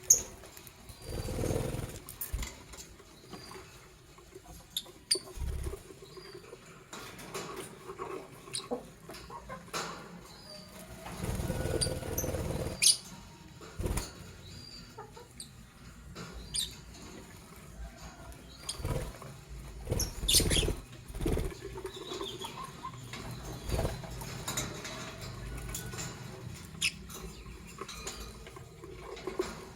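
Lovebirds making short, sharp chirps and squeaks at irregular moments, with shuffling and pattering in the cage. There are louder noisy stretches about a second in and again around the middle.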